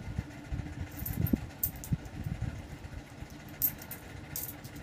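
Peso coins clinking a few times as they are picked up and stacked by hand, over a steady low rumbling hum.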